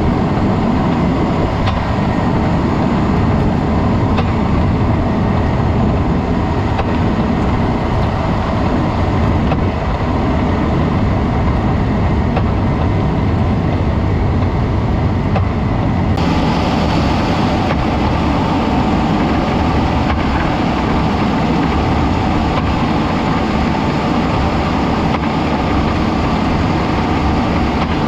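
Steady engine and road noise from a 2017 Jeep Cherokee KL, with an abrupt change in tone about halfway through, where a brighter hiss joins in.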